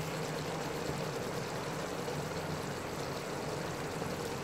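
Steady hiss of a pot of chicken curry simmering on a gas stove.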